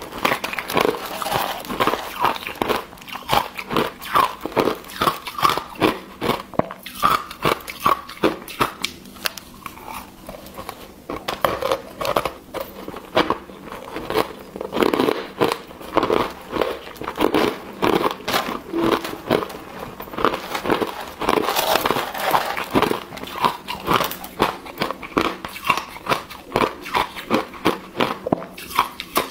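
Hard ice being crunched and chewed between the teeth, heard close up as a steady run of sharp cracks several times a second.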